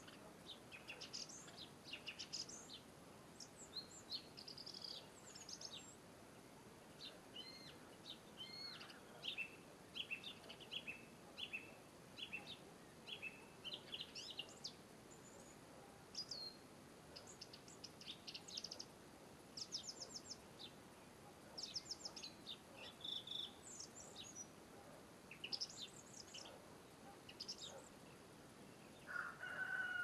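Faint songbird song and calls outdoors: short, high, thin notes and quick trills, one phrase after another. Near the end a lower, drawn-out wavering note starts.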